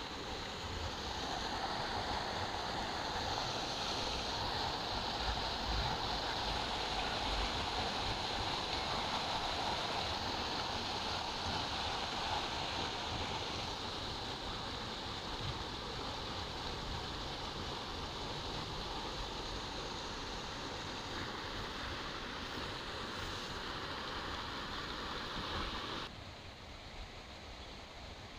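Steady rushing noise of flowing water, which drops suddenly quieter near the end.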